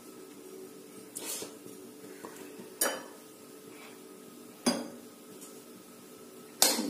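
A metal ladle clinking against an empty metal kadhai: a few light taps, the two sharpest about two seconds apart, over a low steady hum.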